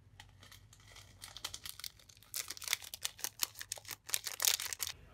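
Plastic sauce sachets from a pack of Samyang spicy noodles crinkling as they are handled. The dense run of crackles grows louder after about two seconds.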